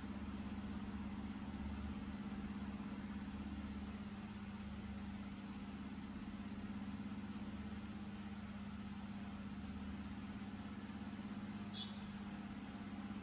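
Steady low mechanical hum, unbroken throughout, with a faint rumble underneath.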